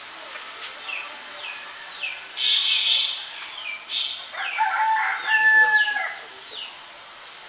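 A rooster crowing once, a long held call about four and a half seconds in, preceded a little over two seconds in by a short harsh burst. Throughout, small birds give short falling chirps about twice a second.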